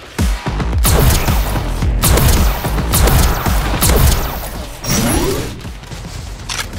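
Rapid volleys of shooting sound effects from a toy blaster over background music. About five seconds in, a rising whoosh marks the switch to the next weapon.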